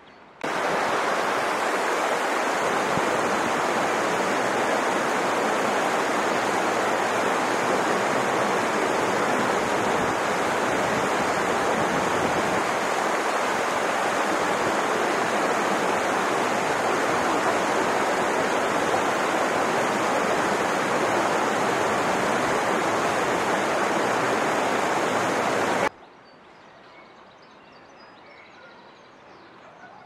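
Mountain stream rushing over rocks in small rapids: a steady, loud rush of water. It starts abruptly about half a second in and cuts off suddenly a few seconds before the end, leaving only a faint background.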